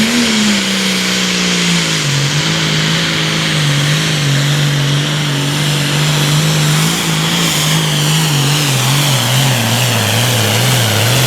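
Super Farm class diesel pulling tractor's engine at full throttle under the load of the sled. The pitch wavers and sags gradually as it goes, with a steady high whine above the engine note.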